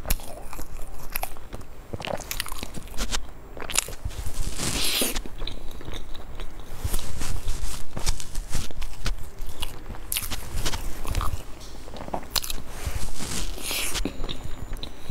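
A person biting into and chewing a flaky egg-yolk and meat floss pastry close to the microphone, with many irregular sharp crunches and mouth sounds.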